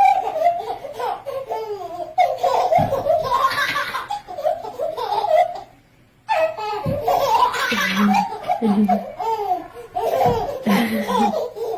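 A baby laughing in repeated belly laughs and giggles, breaking off for a moment about six seconds in and then laughing again.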